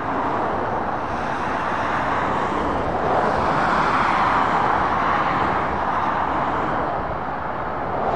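Motorway traffic passing below: a steady rush of tyre and engine noise from a lorry and cars, swelling about halfway through, easing off, then rising again near the end.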